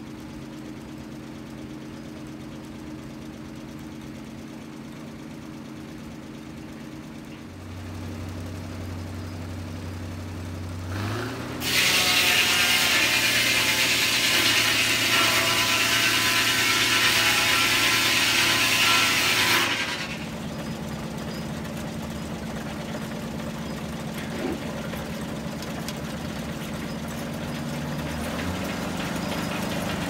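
A sawmill's large circular head saw driven by a 1936 Buick straight-eight engine. The engine runs steadily, picks up about eight seconds in, and then the blade cuts through a log for about eight seconds, the loudest part, before the sound drops back to the engine running and the blade spinning free.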